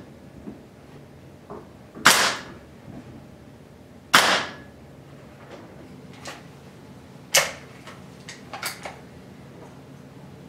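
Hatsan Carnivore .30 caliber spring-piston break-barrel air rifle: two shots about two seconds apart, each a sharp crack with a short echoing tail. Then a further sharp clack and a few lighter clicks as the barrel is broken open to cock the rifle.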